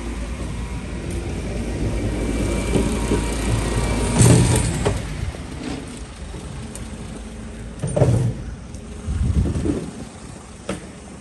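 Car running in heavy rain, with a steady low rumble that eases off about halfway through and a few loud thuds in the second half.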